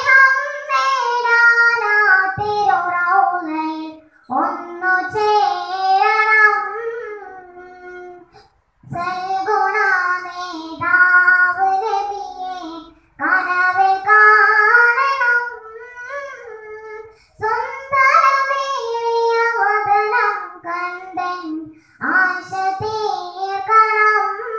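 A young girl singing solo into a microphone with no accompaniment, in phrases of about four seconds with short breaks between them.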